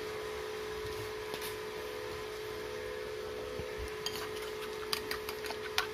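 Spoon clicking against a ceramic bowl as egg whites are stirred with chilli seasoning, a few light clinks in the last two seconds, over a steady hum.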